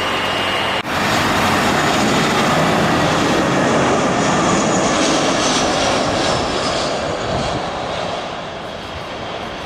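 Jet engines of a private business jet passing on its landing approach: steady jet noise with a faint falling whine, loudest three to four seconds in and then fading. A brief dropout just under a second in.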